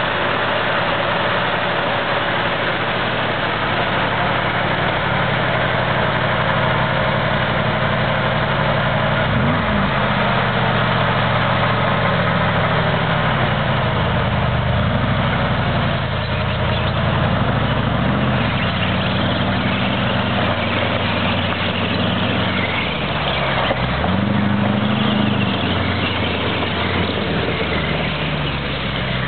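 Full-track swamp buggy's engine running continuously, its speed rising and falling several times as the throttle changes.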